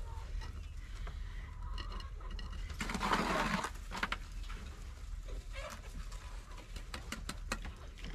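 Masonry work sounds: a scrape about three seconds in and a run of light clicks and taps near the end, from a trowel, mortar bucket and cinder blocks being handled.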